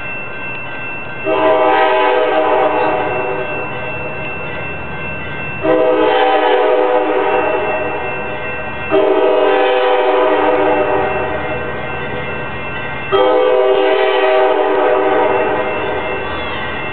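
Amtrak locomotive #503's horn, a multi-note chord, sounding four long blasts. Each blast starts abruptly and fades over a few seconds into the next, over a low engine rumble.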